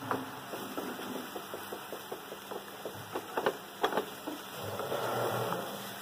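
A spoon clinking and scraping against metal cookware in a string of light taps, with a few louder knocks, as the spice mix goes into the pan. A short soft hiss comes near the end.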